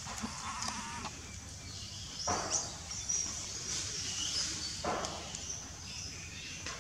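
A macaque calling: one cry of about a second at the start, then two short cries about two and a half seconds apart.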